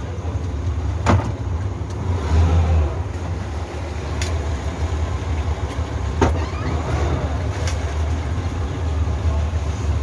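Steady low rumble of a motor vehicle running, with four short knocks or clicks spread through it.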